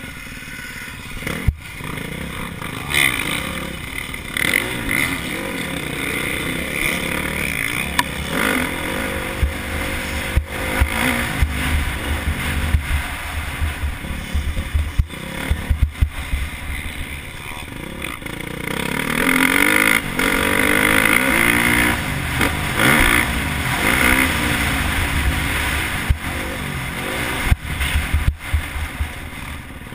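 KTM 350 SX-F four-stroke single-cylinder motocross engine revving up and down as the bike is ridden through corners and straights, its pitch repeatedly rising and falling, most strongly about two-thirds through.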